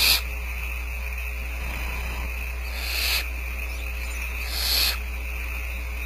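Barn owl chicks giving the rasping begging hiss, or 'snore', typical of nestlings. There are three hisses, each swelling for about half a second and then cutting off, over a steady low electrical hum and a thin high tone.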